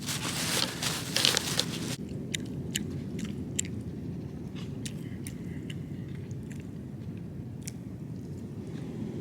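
Close chewing and crunching, with small sharp clicks scattered through it over a low steady rumble; a louder rushing noise in the first two seconds cuts off abruptly.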